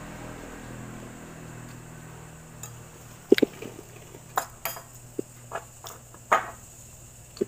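Metal pot and spoon clinking and knocking as boiled sweet potatoes are handled in the pot: a handful of short sharp clinks starting about three seconds in, the loudest first, over a faint steady hum.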